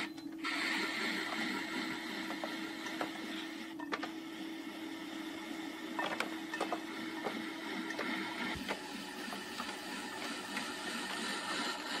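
Electric potter's wheel running with a steady hum while hands and a tool scrape and rub the clay of an upturned bowl. The hum stops about two-thirds of the way through, and light scraping and clicks carry on.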